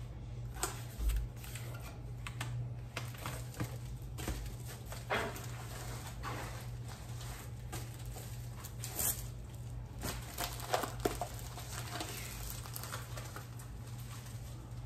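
A cloth wiping a glass container, with light rustles and small handling clicks and taps scattered through, over a steady low hum.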